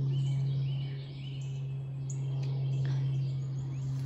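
A steady low hum with several short bird chirps over it.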